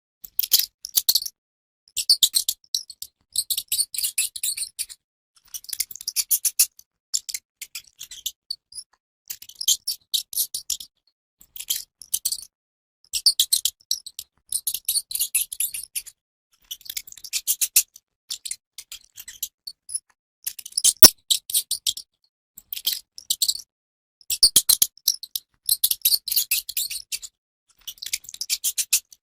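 Mouse squeaking in bouts of rapid, high-pitched chittering chirps, each bout lasting about a second with short pauses between. A single sharp click comes about two-thirds of the way through.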